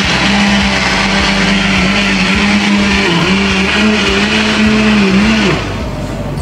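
Countertop blender motor running steadily as it blends ice, water and chocolate-malt drink powder into a slush, then switched off about five and a half seconds in, its hum dropping in pitch as it winds down.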